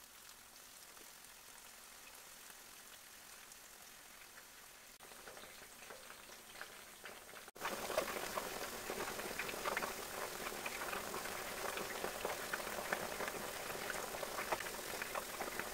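Batter-coated boneless chicken pieces frying in hot oil, a steady sizzle with fine crackling. It is faint at first and turns clearly louder about halfway through.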